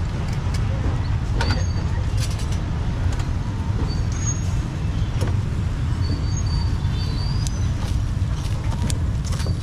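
Busy street ambience: a steady low rumble of traffic, with scattered clicks and brief high chirps.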